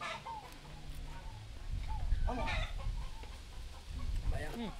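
Hens clucking: short calls scattered through, with a quick run of them near the end, over a low rumble.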